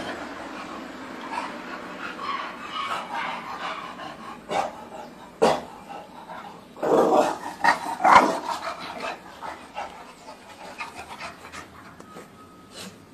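Bulldogs' breathing and panting, with a few short, louder dog sounds about four and a half to five and a half seconds in and again around seven to eight seconds in.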